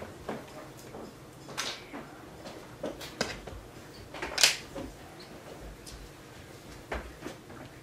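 Small parts being handled on a workbench: scattered light clicks and taps with a few brief rustling scrapes, the loudest scrape about four and a half seconds in.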